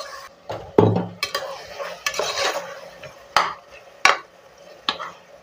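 Long steel spoon stirring and scraping chopped onion, potato and tomato in an aluminium pressure cooker, with several sharp clinks of metal on the pot's side.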